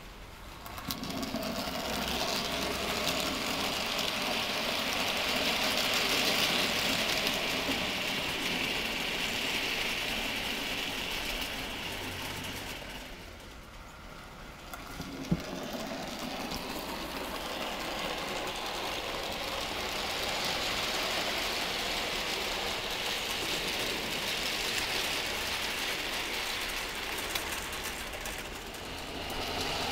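00 gauge model freight train running over the track: small electric motor whirring and wheels rattling on the rails. It fades away about halfway through, a single sharp click follows, and then the running sound builds again as a train comes round.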